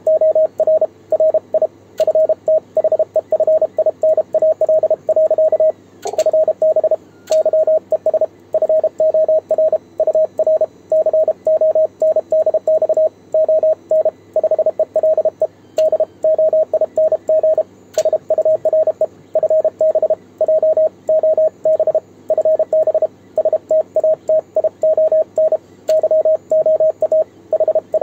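Morse code (CW) sent on a homemade 3D-printed single-lever paddle, heard as the Yaesu transceiver's sidetone: one steady mid-pitched beep keyed rapidly into dits and dahs, with a few sharp clicks.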